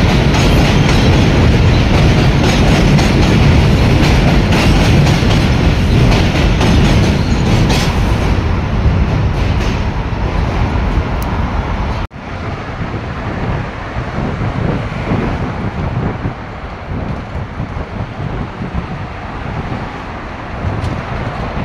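NYC Subway train running across the Williamsburg Bridge: a loud, steady rumble of wheels on rails, with rapid clicks over the rail joints. About twelve seconds in, the sound cuts off abruptly to a quieter, steady noise.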